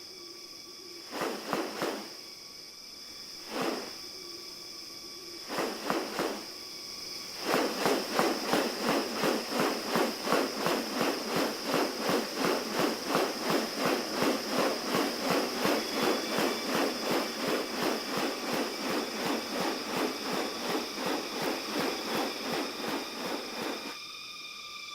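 Rainforest animal calls: a steady high-pitched insect drone, joined by a few short rasping bursts and then, from about seven seconds in, a loud pulsing call repeating about twice a second until it stops just before the end.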